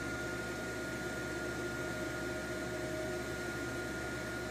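Steady fan hum with a faint, constant high whine, as of the switched-on MIG welder's cooling fan running.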